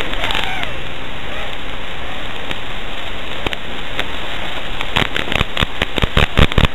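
Steady rushing static in the audio of an FPV quadcopter's analog video recording, with crackling pops that come thick and fast in the last two seconds.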